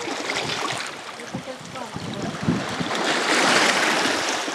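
Sea waves washing onto a pebble beach, one wave surging up loudest about three seconds in and drawing back.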